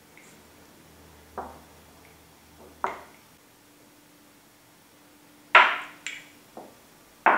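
Wooden chess pieces being set down on a wooden board: about six short, sharp knocks, the loudest a little past halfway.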